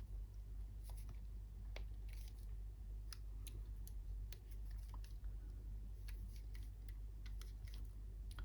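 Long-nose pliers squeezing and flattening a small part: a scatter of small, sharp clicks and light scrapes from the jaws and the part, over a steady low hum.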